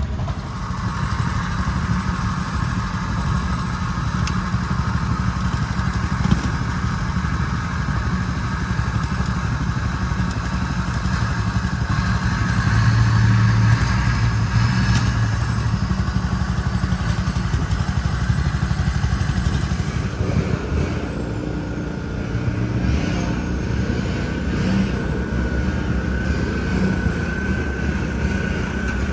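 A vehicle engine running steadily while towing, working harder for a few seconds about midway through.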